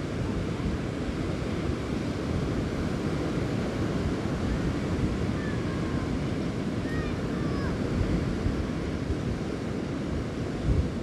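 Rough sea surf breaking steadily on a shingle beach, with wind buffeting the microphone. There are a couple of low thumps near the end.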